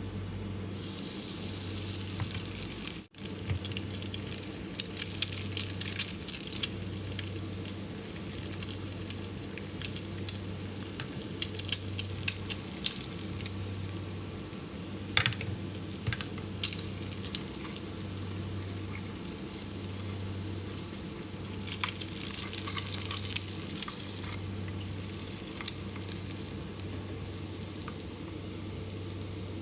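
Food sizzling as it fries in a pan, with the clicks and scrapes of a utensil stirring it, over a steady low hum.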